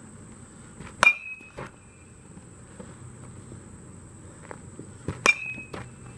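A metal baseball bat hits a ball twice, about four seconds apart. Each hit is a sharp ping with a short ring, followed about half a second later by a duller knock.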